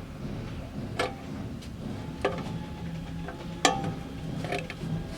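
Sharp clicks and taps of small lock parts being handled and fitted as the lock chamber goes back onto a case lock, four or five clicks about a second apart over a faint low hum.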